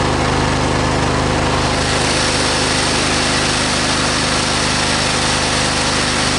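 Briggs & Stratton V-twin lawn tractor engine running steadily, its note unchanged while the intake is checked for a leak, which the owner takes to mean the intake manifold is good.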